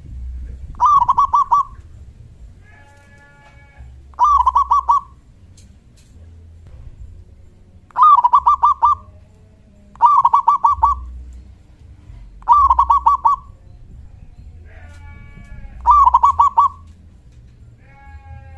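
Zebra dove (perkutut) singing: six loud phrases of quick rolling coo notes, each under a second long, repeated every two to four seconds. Fainter calls of another bird come between some phrases.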